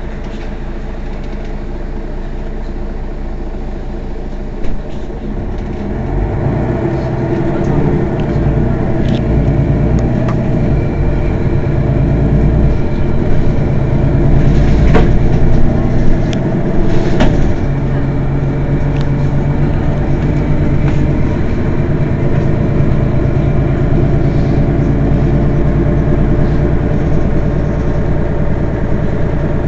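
Mercedes-Benz Citaro city bus's diesel engine running steadily at a standstill. It grows louder about six seconds in and stays at that higher level, with a few short sharp knocks or clicks around the middle.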